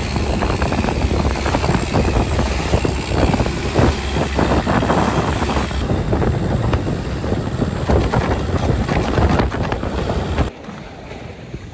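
Long-tail boat's engine running at speed, with water splashing against the wooden hull and wind buffeting the microphone. About ten seconds in the sound drops suddenly to a much quieter level.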